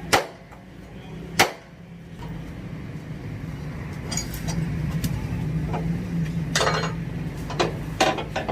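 Two sharp hammer blows about a second and a quarter apart. A steady low hum then builds up, and several lighter knocks and clanks come near the end.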